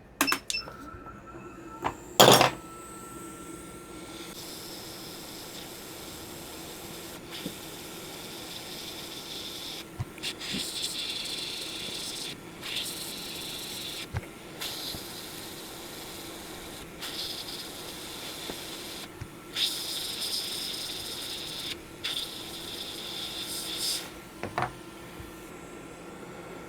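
Hot-air rework station blowing on a phone logic board to heat a chip for removal: a steady airy hiss from about four seconds in, swelling and dipping several times, after a sharp knock about two seconds in.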